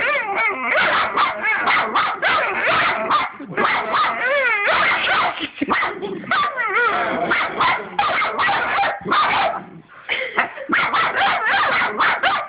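Two puppies barking and yipping at each other in quick succession in a play fight, some calls wavering up and down in pitch, with a couple of brief lulls.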